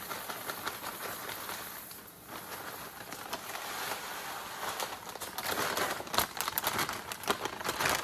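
Crinkling of a cereal bag and dry Fruity Pebbles cereal rattling as it is poured out, with the rustle and clicks getting busier from about five seconds in.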